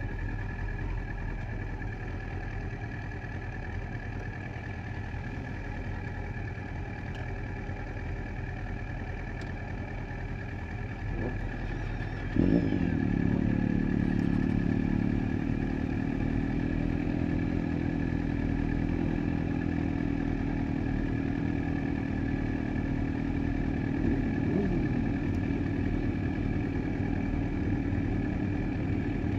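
Motorcycle engines idling in a group of parked bikes. About twelve seconds in, a nearby motorcycle engine starts with a short rev that drops into a louder, steady idle, with another brief rev about twenty-five seconds in.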